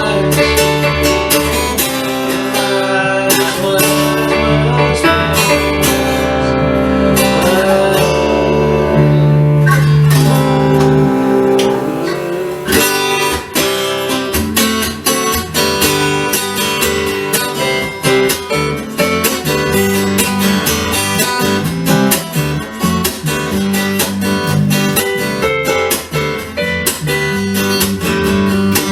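Acoustic guitar instrumental break: held and bending notes for about the first twelve seconds, then steady rhythmic strumming.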